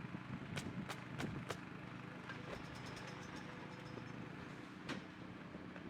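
Roofing nail guns firing single sharp shots, four in quick succession about a second in and one more near the end, over a steady low machine hum.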